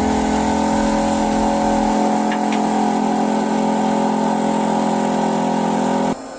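A heavy engine running steadily at constant speed, cutting off suddenly near the end.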